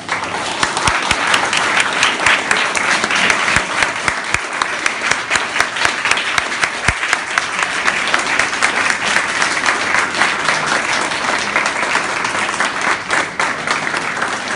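An audience of schoolchildren applauding. The clapping breaks out all at once as the music stops and goes on dense and steady.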